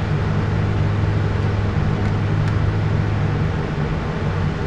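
A steady low machine hum under an even rush of noise.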